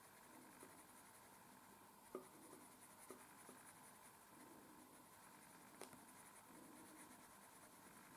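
Very faint scratching of a coloured pencil shading back and forth over paper, laying another layer of colour, with a few soft ticks.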